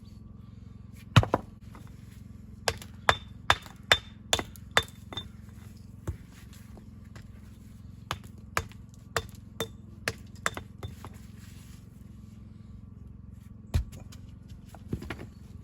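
Hammer blows in short runs of quick strikes, about two a second, some with a short metallic ring, with pauses between the runs.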